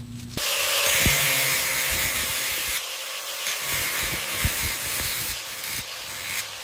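A steady spraying hiss that starts suddenly just under half a second in, with a few faint low knocks underneath.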